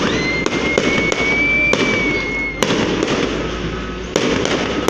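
Aerial fireworks display: shells bursting in a string of sharp bangs, about seven in all, over a steady crackle. A high whistle sounds for the first two and a half seconds and ends with a bang.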